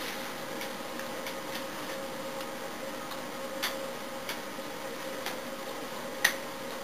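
Light, irregular taps and clicks from hands meeting each other and the chest while signing, the sharpest one near the end, over a steady hiss with a faint hum.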